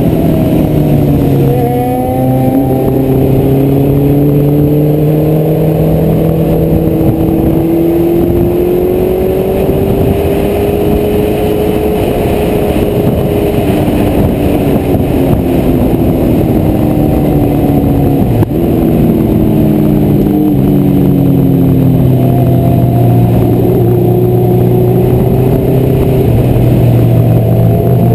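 Honda CBR1100XX Blackbird's inline-four engine heard onboard at track speed under steady wind noise. The engine note dips briefly, climbs slowly and holds, then falls away as the bike slows, and climbs again near the end. There is a single sharp knock about two-thirds of the way through.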